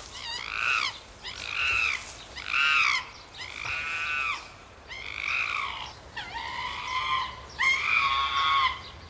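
A series of animal calls, each rising and then falling in pitch, repeating about once a second; the later calls are longer and louder.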